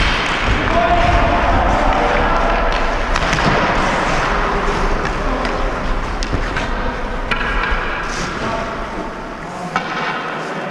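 Ice hockey play heard from a skater's helmet camera: skates on the ice and scattered sharp clacks of sticks and puck, over a low rumble on the microphone that drops away near the end.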